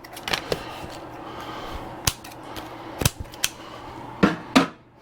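Snipping and sharp plastic clicks: cutters cutting the retaining bands on a 3D-printer filament refill coil fitted in a snap-together reusable spool. There are about seven scattered clicks, the two loudest close together near the end.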